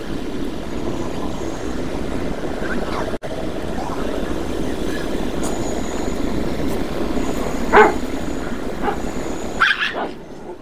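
Street dog giving a short sharp bark about eight seconds in and a higher yelp shortly after, as two dogs tussle, over a steady hum of street traffic.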